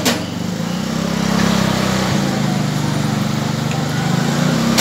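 A steady low machine drone with a few even pitch lines, and a sharp metallic clink right at the start.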